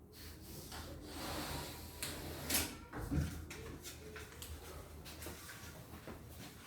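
Wooden cabinet parts being handled: MDF pieces sliding and rubbing against each other, with a few light knocks, two of them louder a little before the middle.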